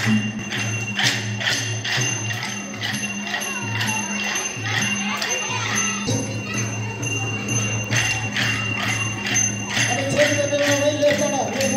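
Traditional dance music for a monkey-dance rehearsal: metal cymbals or bells struck in a quick steady beat, about two to three strikes a second, over a low pulsing drum.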